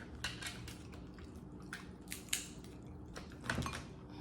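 Close-miked eating sounds: soft wet smacks and small clicks of chewing and handling food, scattered a few times a second.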